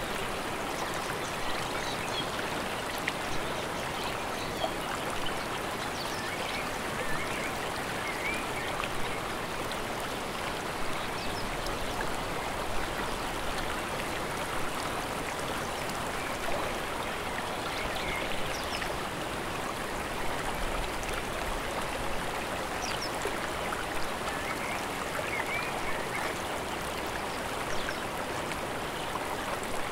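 Running water of a mountain stream, an even steady rush with small splashes throughout.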